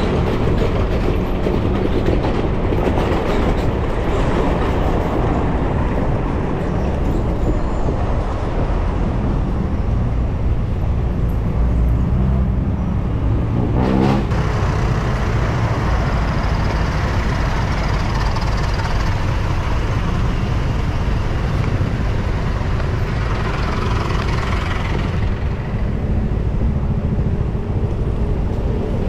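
Steady rush of wind and road noise while riding a bicycle through traffic, with a brief wavering pitched sound about halfway through.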